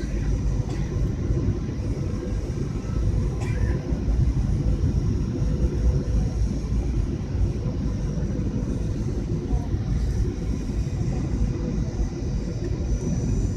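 Airliner cabin noise: the steady low rumble of the engines and airflow in flight, with a faint steady whine over it.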